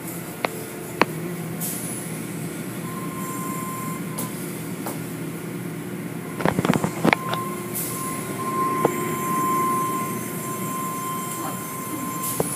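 Automatic tunnel car wash running: a steady rush of water spray and machinery, with a cluster of knocks about six and a half seconds in, likely the hanging cloth strips slapping the car, and a steady high whine from about seven seconds in.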